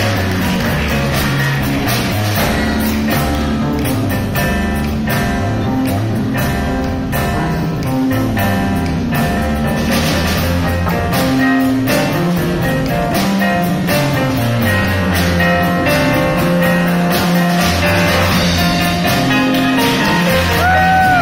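A youth big band playing live: drum kit, electric guitars and bass guitar, with violins and a cajon in the ensemble, loud and continuous.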